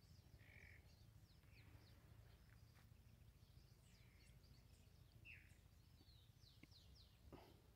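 Near silence: faint rural outdoor ambience with a steady low rumble and scattered faint bird chirps.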